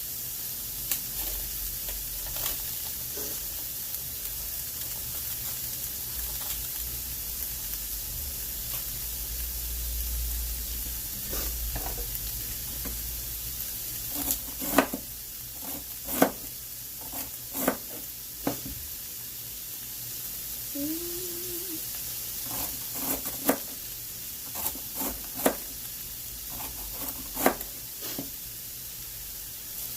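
Chopped vegetables sizzling steadily in a hot pot. Sharp knocks of a stirring utensil against the pot come repeatedly through the second half.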